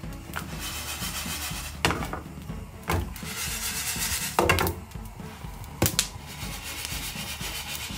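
Whole coriander seeds sliding and rattling across non-stick frying pans as the pans are shaken during dry-roasting, in two long hissing swishes. Several sharp knocks of the pans against the gas stove's grate come in between.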